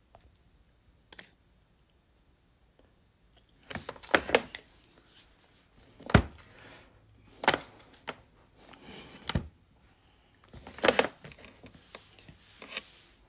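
Handling noise from a phone recording itself: a string of irregular knocks and taps, with light rubbing, as the phone is touched and adjusted.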